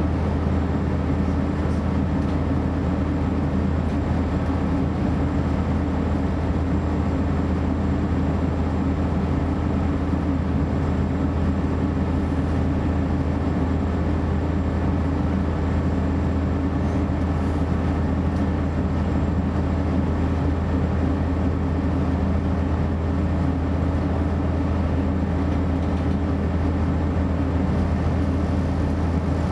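DB Class 633 PESA Link diesel multiple unit heard on board while running at speed: a steady low diesel drone mixed with wheel and rail rolling noise, unchanging throughout.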